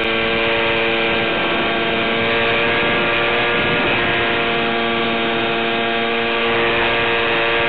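The electric motor and propeller of an FPV model plane, heard through its video transmitter's audio link as a steady buzz of several tones over hiss. The motor drops back for a few seconds in the middle as the throttle is cut, then picks up again.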